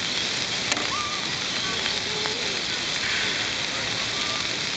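Beef sizzling on a grill: a steady hiss, with one sharp click about three-quarters of a second in.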